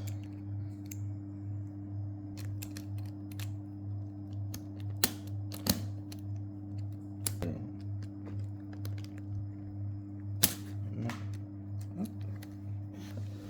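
Sharp plastic clicks of 4x4 Rubik's cube pieces being fitted and snapped together by hand, a handful of separate clicks with the loudest about five, six, seven and ten seconds in, over a steady low hum.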